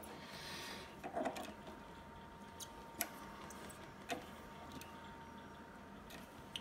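Light metallic clicks and taps from a four-jaw lathe chuck being adjusted by hand and with its chuck key, a handful of separate clicks spread over several seconds, the sharpest about three seconds in, over a faint steady hum.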